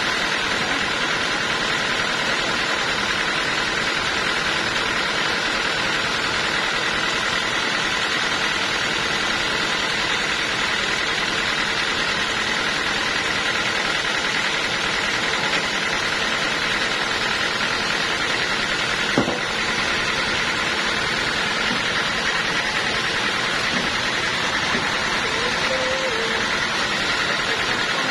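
Sawmill machinery running steadily, a constant mechanical drone with a steady whine over it. One sharp knock about two-thirds of the way through.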